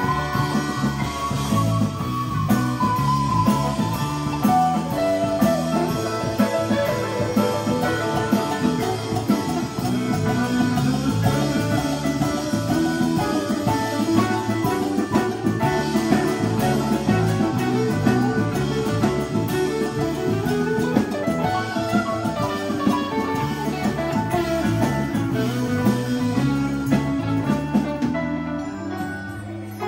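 Live rock band playing: electric guitar lead over electric bass, keyboard, drum kit and congas. The playing thins out a little near the end.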